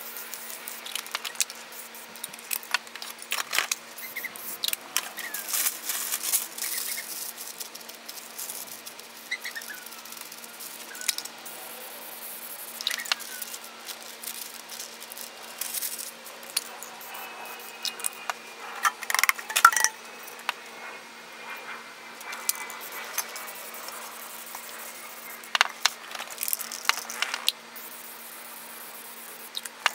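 Aerosol spray paint cans hissing in short bursts, mixed with clicks, taps and rattles of cans and paper being handled. A faint steady hum runs underneath.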